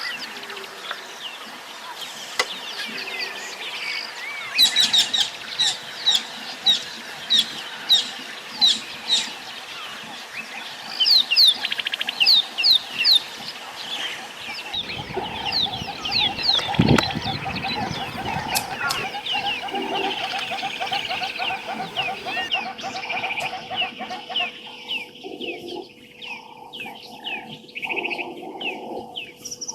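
Birds calling: spells of sharp, repeated chirps that each slide downward, about one or two a second, over other bird calls. A brief low thump comes about halfway through.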